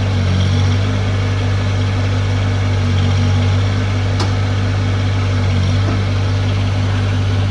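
Branson 1905 compact tractor's diesel engine running at steady revs while it drives the BH90 backhoe's hydraulics, with one sharp click about four seconds in.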